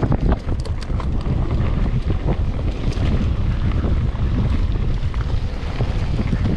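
Wind buffeting the microphone of a camera riding along on a fast mountain-bike descent, as a heavy, steady rumble. Scattered short clicks and rattles from the bike and tyres over the trail run through it.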